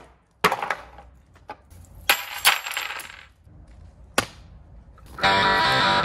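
Scattered metallic clinks and a short clatter as metal swivel casters and tools are handled and set down on a board, with one sharp click about four seconds in. Near the end a cordless drill starts and runs steadily, driving screws to fix a caster to the plywood.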